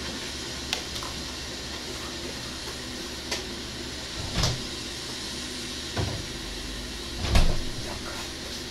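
Kitchen handling noises: several short clicks and knocks of things being moved and set down. The loudest is a heavy thump about seven seconds in. A steady low hum runs underneath.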